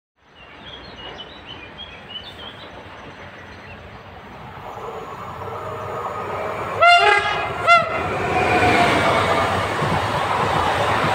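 EN79-001 electric multiple unit approaching on the rails, its rumble building steadily. About seven seconds in it gives two short horn blasts. It then passes close with loud rolling noise and a falling whine from its electric drive.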